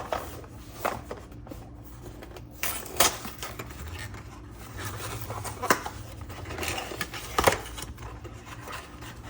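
A few separate light clicks and knocks of a box of Nespresso coffee capsules being opened and handled, over a low steady hum.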